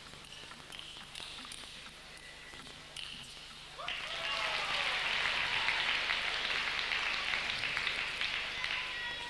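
A table tennis arena crowd, quiet with a low murmur at first, breaks into applause about four seconds in and keeps clapping, easing off near the end. The applause greets the end of a one-sided first set.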